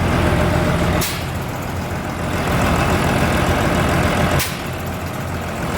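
Rebuilt Deutz diesel engine idling steadily, freshly installed after a major overhaul. Two brief clicks come about one second and four and a half seconds in.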